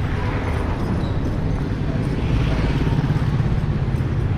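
Street traffic, with a motorcycle engine passing close by over a steady low rumble of vehicles, growing a little louder in the second half.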